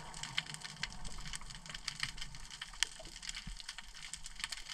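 Underwater crackle of snapping shrimp: a dense, irregular patter of sharp clicks over a faint low hum.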